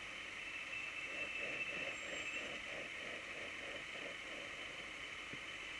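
Traffic noise recorded by a dashcam from inside a car waiting in slow city traffic: a steady hiss, with a run of soft rhythmic pulses, about four a second, from about one to four seconds in.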